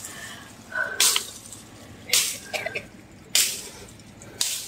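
Footsteps through dry grass, twigs and leaf litter, one step about every second.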